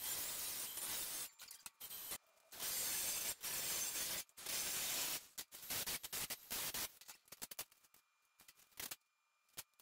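Choppy, sped-up workshop sound of steel flat bar and clamps being handled on a metal bench: stretches of hiss with scattered clicks and knocks, broken by short dropouts to silence, thinning out in the last few seconds.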